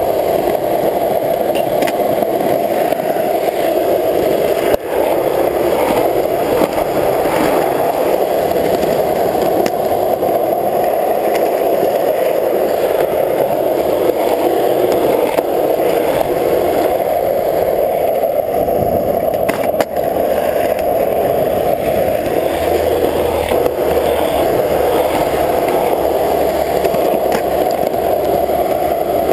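Skateboard wheels rolling over rough asphalt, a steady loud roar, with a couple of brief sharp clicks about five seconds in and again near twenty seconds.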